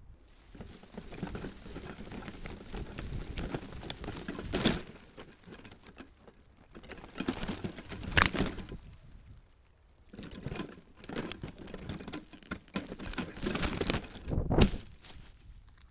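Leaves and twigs rustling and scraping against an FPV quadcopter's camera as it is jostled while lodged in a tree, in irregular bursts with a few sharper cracks, loudest near the end.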